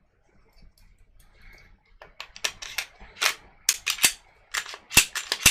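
Glock 23 pistol's slide and action being worked by hand after cleaning and lubrication: a rapid series of sharp metallic clicks and snaps starting about two seconds in, the loudest near the end. The freshly oiled action sounds smooth.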